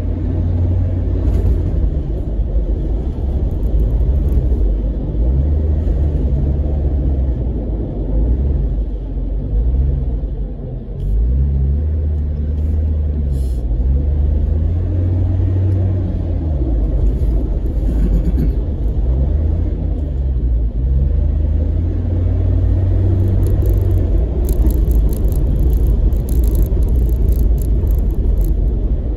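Off-road vehicle's engine heard from inside the cabin while driving over soft desert sand, a steady low rumble whose pitch rises and falls as the revs change. Light rattling clicks come in near the end.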